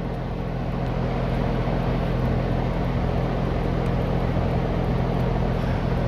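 Bosch 20 SEER variable-speed heat pump outdoor unit running: a steady low hum over an even rush of air. The unit is still in its initial startup, not yet in forced high-speed mode.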